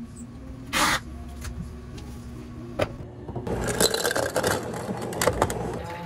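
A brief scrape of cardboard boxes being packed, about a second in. From about halfway, water pours from a pitcher over ice cubes in a tall glass, with the ice clinking and crackling.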